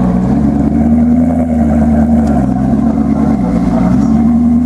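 Maserati GranTurismo MC Stradale's naturally aspirated V8 running, heard at the exhaust: a steady note whose pitch rises and falls gently a few times.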